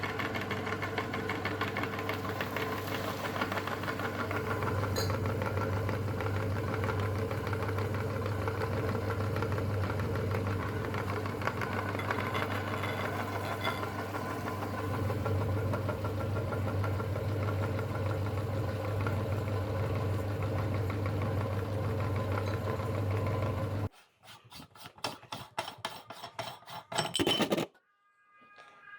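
Electric meat grinder running under load from Orbeez, a steady motor hum that cuts off suddenly about 24 seconds in. A quick run of sharp clicks follows near the end.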